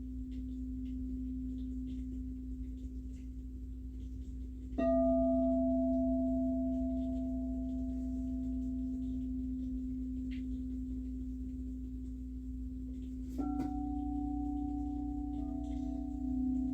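Singing bowls ringing: a steady low tone sounds throughout, and a bowl is struck about five seconds in and again about thirteen seconds in, each strike leaving a clear, pure tone that rings on and slowly fades.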